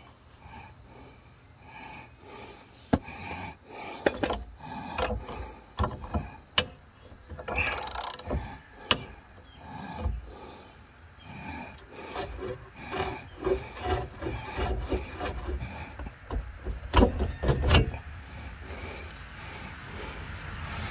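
Hand socket ratchet clicking in short runs as a nut is tightened on a steel leaf spring hanger bolt, with scattered metal knocks and taps from the tool and bracket.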